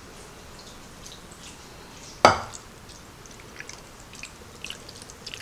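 Beef broth poured from a glass measuring cup into a slow cooker over short ribs and onions, faint trickling and dripping, with one sharp knock about two seconds in.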